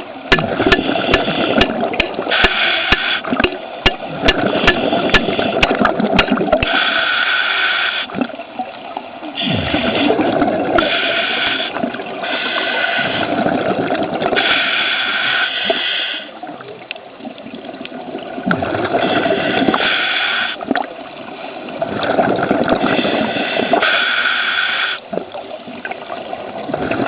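Underwater bubbling and rushing water: scuba divers' exhaled regulator bubbles in irregular spells of a second or so, every few seconds, over a steady low rush.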